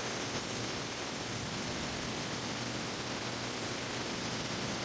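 Ultrasonic cleaner running: a steady hiss of the cavitating water bath over a low, even hum. The bath is working on a jar of near-pure isopropyl alcohol holding a Bridgeport mill's gummed-up oil metering units, run at room temperature.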